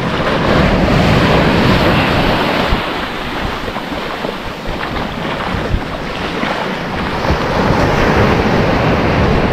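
Surf breaking and washing up a sandy beach, swelling twice, near the start and again near the end. Wind is buffeting the microphone.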